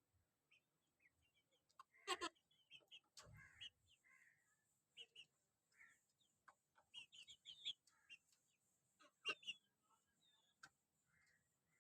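Chickens clucking and chirping in short, scattered calls, with a sharp knock about two seconds in and another a little after nine seconds.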